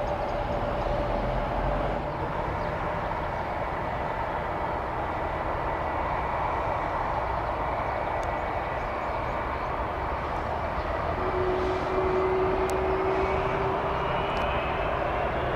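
Boeing 757 freighter's twin turbofan engines running at low taxi power: a steady jet rumble with a whine over it. The whine rises slightly in pitch near the end.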